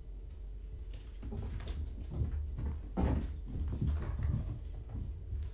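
Kittens romping: quick dull thuds and patters of paws running, landing and pouncing on a rug and rubber floor mat. They start about a second in and are busiest around the middle.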